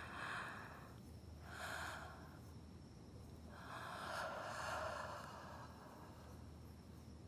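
A person snoring softly: three breathy snores, the third the longest.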